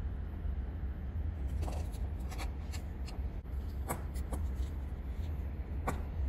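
Several light clicks and taps of small objects being handled, about five scattered across a few seconds, over a steady low hum.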